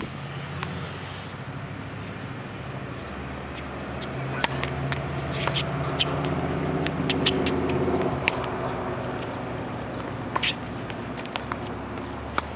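Tennis ball struck by rackets and bouncing on a hard court during a rally: a string of sharp pops a second or more apart, over a low hum that swells in the middle and fades.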